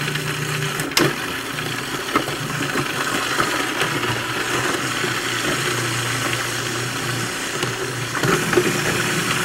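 Food processor motor running steadily while it minces cauliflower, with one short knock about a second in.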